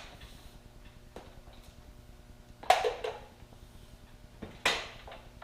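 Bosch T4B miter saw stand being worked by hand, its metal frame and latches giving a light click and then two sharp clanks about two seconds apart.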